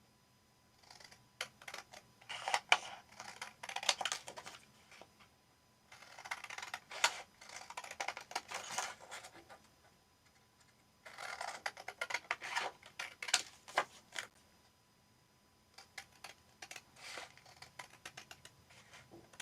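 Scissors snipping through paper in rapid crisp strokes, in four runs separated by short pauses.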